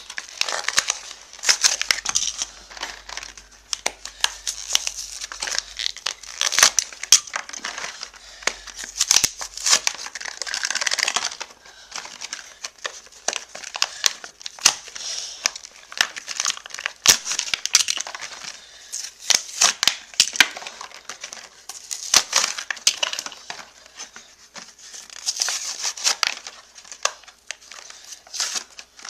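Hot Wheels blister packs being ripped open by hand: the stiff plastic blisters crinkling and crackling and the cardboard backing cards tearing, with many sharp snaps and clicks.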